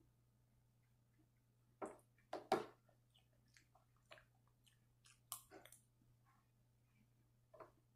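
A person eating cereal with a spoon from a bowl, chewing between mouthfuls. Sharp clicks come in a loud cluster about two seconds in, again midway and once near the end.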